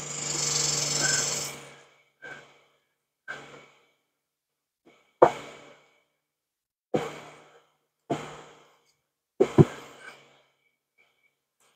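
A long breathy sigh in the first two seconds, then a hive tool prying and scraping at the wooden frames of a beehive box: about seven short, sharp clicks and scrapes, one to two seconds apart.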